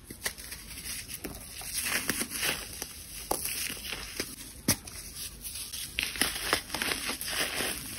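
Dry clumps of baking soda mixed with sand crunching and crumbling between fingers: a dense run of small crackles and gritty crunches, with one sharper snap a little past halfway.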